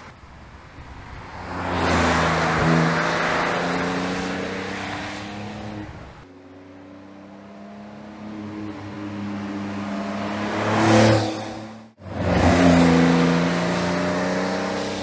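2022 Porsche 911 Carrera GTS, manual, its twin-turbo flat-six and sport exhaust driving by in three edited passes. The engine note swells as the car nears and falls away as it goes by, with abrupt cuts about 6 s and 12 s in. The loudest moment comes just before the second cut.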